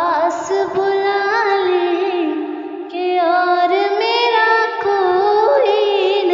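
A woman's voice singing a slow Hindi devotional song over a music backing, in long phrases of held, wavering notes; a new phrase begins about three seconds in.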